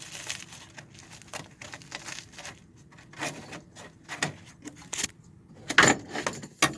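Light metallic clicking, rattling and rustling from hands working at parts under a car's dashboard, with a louder clatter about six seconds in and another sharp knock just before the end.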